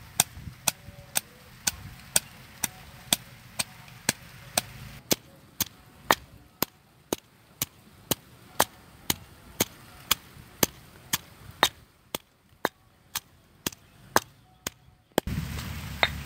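Stone pestle pounding chillies and garlic in a stone mortar: sharp, evenly spaced knocks, about two a second. Near the end a low background rumble comes in.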